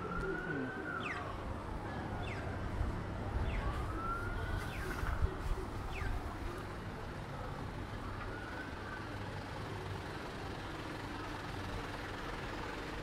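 Street traffic: vehicles and a light truck passing, a steady low engine and tyre rumble that swells a few seconds in. Over it come faint high whistles, some that rise and fall in a slow arch three times, others short and dropping.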